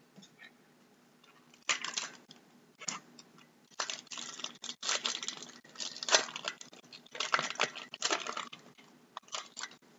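A gold foil Yu-Gi-Oh! Gold Series 4 booster pack being torn open and crinkled by hand: irregular crackly rustles that start a little under two seconds in and go on in short bursts.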